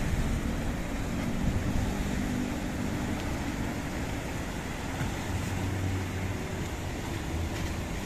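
Engine of a small wooden outrigger fishing boat running steadily as it heads out through rough water, over the wash of waves breaking on a rock breakwater and wind on the microphone.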